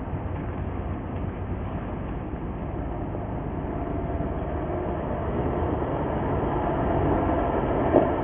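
Jeep Grand Cherokee crawling slowly over a rocky dirt track, its engine running steadily at low revs and growing louder as it comes close. There is a brief knock near the end.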